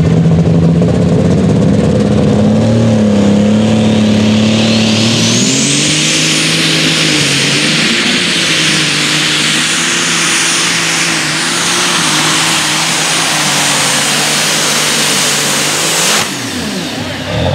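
Alcohol-burning Case IH Light Super Stock pulling tractor making a full pull under load. Its engine runs hard, and a turbocharger whine rises to a high, steady scream about six seconds in. About sixteen seconds in the throttle is cut, and the engine and turbo wind down.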